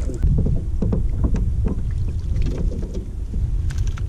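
Low, irregular rumble of water and wind around a fishing boat's hull, with a few light knocks on the boat.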